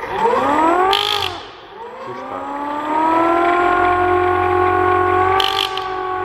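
Small 3D-printed mechanical siren, spun by an electric motor through a speed controller, wailing: its pitch rises and falls once, then climbs again about two seconds in and holds a steady note. Two short sharp clicks come about a second in and near the end.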